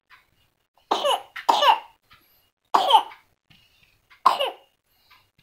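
An infant coughing four times in short separate bursts, the first two close together and two more about a second and a half apart.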